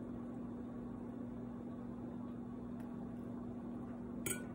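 Steady low room hum with a single constant pitch running underneath, and a brief click near the end.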